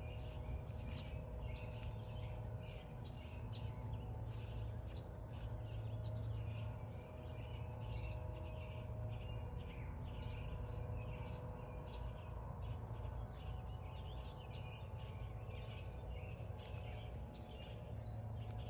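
Small birds chirping and calling in the background, many short high chirps throughout, over a steady low hum.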